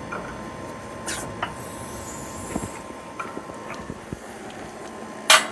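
Hydraulic shop press under load against a wheel bearing in a Honda Civic steering knuckle: scattered light metallic creaks and ticks, then one loud sharp bang near the end.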